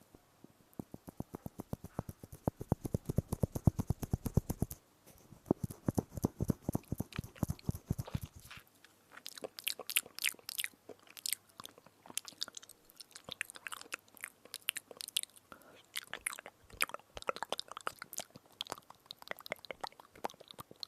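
Close-miked biting and chewing of an edible spoon. The first half is a fast, even run of clicks with a deep thud under each. From about nine seconds in it turns to sharper, crisper crunches.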